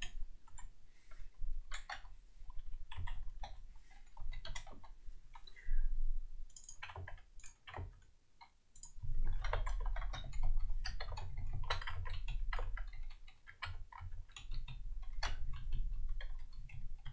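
Computer keyboard typing: irregular runs of keystroke clicks with short pauses, over a low hum that is stronger in the second half.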